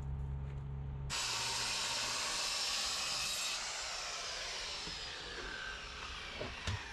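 Corded circular saw after a plywood cut: a loud high whine that starts abruptly about a second in, then slowly fades and drops in pitch as the blade spins down. A low hum is heard before it.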